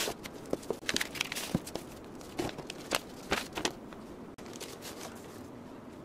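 Cardboard box flaps and paper sheets rustling and crinkling in a run of short, irregular bursts as the box is opened and a folded paper sheet handled, easing off after about four seconds.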